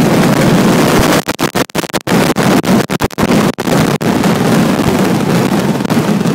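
Fireworks finale: a dense, continuous barrage of bursts recorded as a loud, distorted wall of noise, with the sound cutting out several times between about one and four seconds in.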